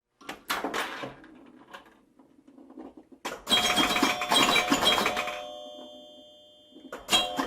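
Cartoon sound effects: a short swish in the first second, then, a few seconds in, a loud clash of bell-like ringing tones that die away over about two seconds. A second ringing burst comes near the end.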